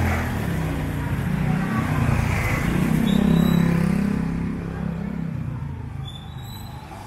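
A motor vehicle's engine passing close by, getting louder to a peak a little past three seconds in and then fading away, over steady street noise.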